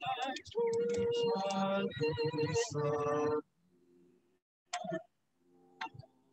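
Small choir singing held notes together. About three and a half seconds in, the sound cuts out suddenly, leaving only faint broken snatches: garbled, dropping-out music from the livestream's technical trouble.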